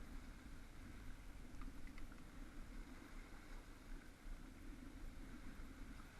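Faint, steady outdoor background noise with a few faint ticks about one and a half to two seconds in.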